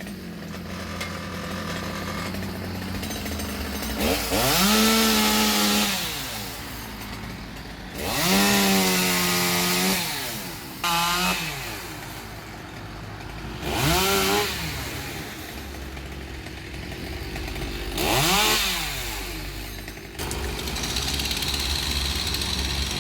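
Two-stroke chainsaw idling and revving up in five short bursts, each rising in pitch, held a second or two and dropping back to idle: branches being cut. Near the end a steadier engine sound takes over.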